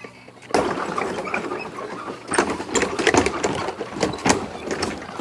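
Old bridge creaking badly: a dense, irregular run of creaks and knocks starts suddenly about half a second in and goes on for several seconds.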